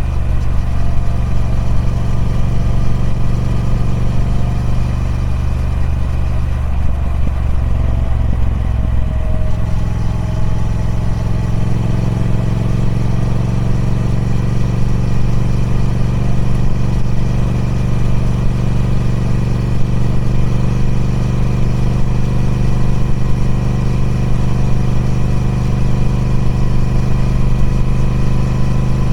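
Triumph Speed Twin 1200's 1200 cc parallel-twin engine running through its stock exhaust. About nine to ten seconds in its note shifts, then holds steady.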